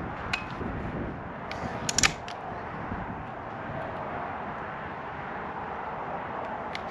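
Sharp metallic clicks of an Air Arms TX200 spring-piston rifle being cocked and loaded with its underlever: one click just after the start, a quick cluster of louder clicks about two seconds in, and another near the end, over a steady background hiss.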